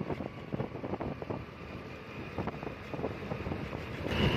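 Wind buffeting the microphone of a moving motorcycle, with the bike's engine running underneath. Louder near the end.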